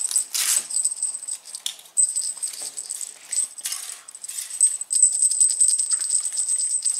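A small gold jingle bell on a red ribbon jingling as it is shaken, ringing high and almost without a break. Gold foil crinkles now and then as it is peeled off a chocolate bunny.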